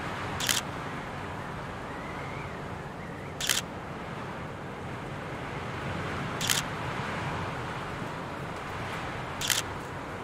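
Camera shutter clicking four times, one click every three seconds, over a steady background hiss.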